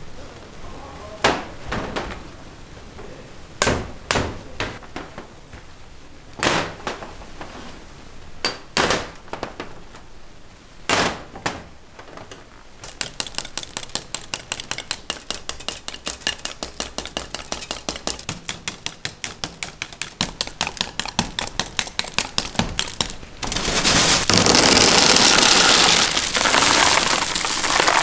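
Handmade hard candy being cut and handled: scattered sharp clicks and clinks, then an even run of quick sharp strokes, about four a second, like a knife chopping a candy rope into pieces. About two-thirds through this gives way to a loud, continuous rattling and crinkling of the pieces.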